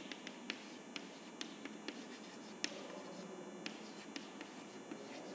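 Chalk writing on a blackboard: irregular sharp taps and light scratching as letters are written, a few strokes a second.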